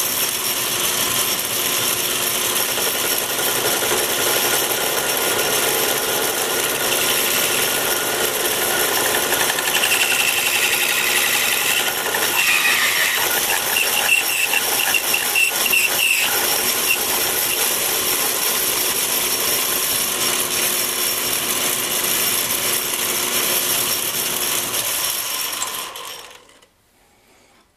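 Atlas 618 bench lathe running steadily with its belt-and-pulley drive while a parting tool cuts off a small turned part. A high squeal comes and goes twice midway. Near the end the lathe is switched off and runs down.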